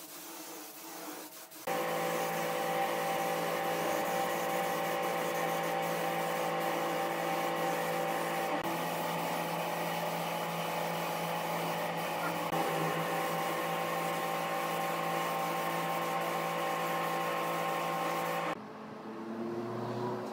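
A steady machine hum made of several fixed tones, starting abruptly about two seconds in and cutting off sharply near the end; before it, a faint hiss.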